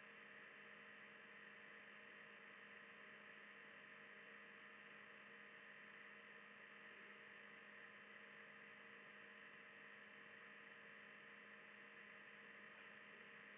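Near silence: room tone with a faint steady electrical hum and hiss.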